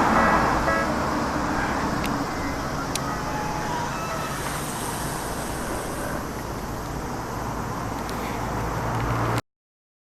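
Railway level-crossing warning bell ringing in a steady repeating rhythm, stopping about a second in. Street traffic noise follows and cuts off suddenly near the end.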